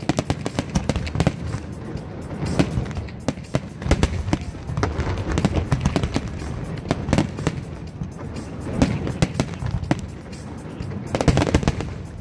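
Aerial fireworks display going off in a rapid, unbroken barrage of sharp bangs and crackling from bursting shells, with music playing underneath.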